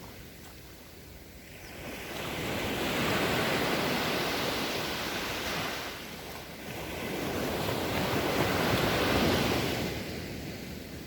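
Ocean waves surging and washing on the shore, two rushing swells, the first about two seconds in and the second about seven seconds in.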